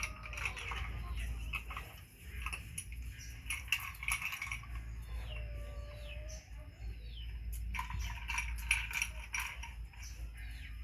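Chickens clucking and calling, mixed with scattered clicks and knocks.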